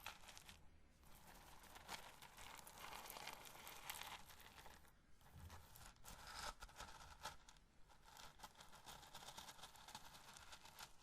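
Roasted corn kernels being handled and rubbed between the fingers: a dense, fine crackling and rustling, broken by a couple of short pauses.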